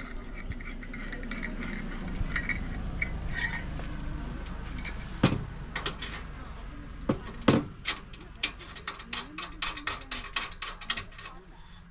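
A run of sharp clicks and clinks of small hard objects being handled, coming thicker about halfway through, with two louder knocks around the middle.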